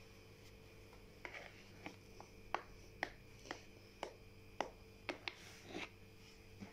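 A knife cutting a chilled chocolate biscuit cake in a baking dish, with a dozen or so sharp clicks and taps about two a second as the blade strikes the dish.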